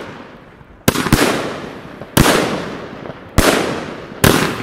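Pangu 'Brasilian Box' 114-shot fireworks cake firing: about five sharp bangs of bursting shots, the first two close together and the rest roughly a second apart. Each bang is followed by a fading hiss.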